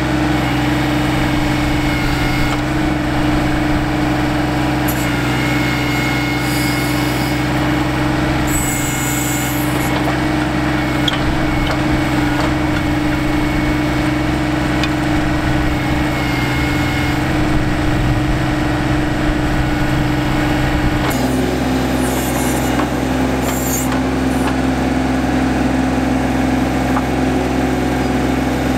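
John Deere 2025R compact tractor's three-cylinder diesel engine running steadily while its 270A backhoe digs, with a thin whine coming and going and brief hissy scrapes now and then as the bucket works the soil.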